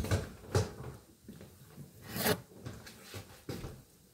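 Handling noises as a glass pie dish is picked up off the counter and carried away: a few short scraping and rubbing sounds with light knocks, the loudest a little past the middle.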